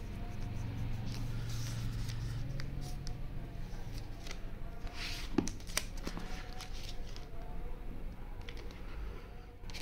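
Handling sounds of a MacBook Air being lifted out of its cardboard box tray: soft rustling and scraping of the laptop against the cardboard, with a couple of sharp clicks about halfway through. A low hum sits under the first few seconds.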